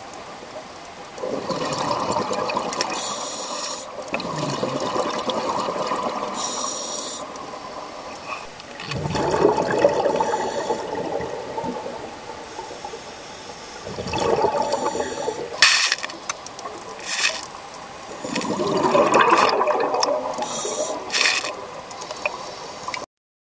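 Scuba diver breathing through a regulator underwater: about five rushes of exhaled bubbles, each lasting two to three seconds, every four to five seconds, with brief high hisses from the regulator among them. The sound cuts off suddenly near the end.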